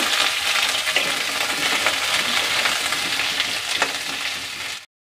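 Potato pieces sizzling steadily in hot mustard oil in a kadai, with a few light scrapes of a metal spatula stirring them. The sound cuts out abruptly just before the end.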